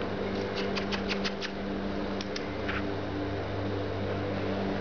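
Short, high squeaks: a quick run of about seven, then two more and one slightly longer, lower squeak. They sound over a steady, low motor drone.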